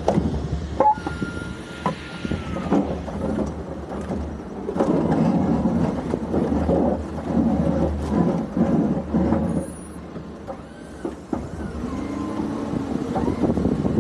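Ford F-350 plow truck's engine running steadily while the Boss plow scrapes snow across the pavement, the rough scraping rush loudest through the middle. A brief high whine sounds about a second in.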